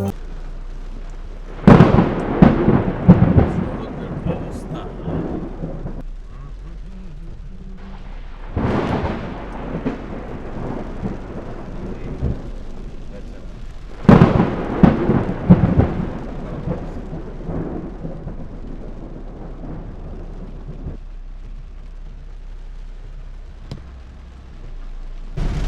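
Thunder during a heavy rainstorm: three loud cracks, each rolling off over a few seconds, about two, eight and fourteen seconds in, over steady rain.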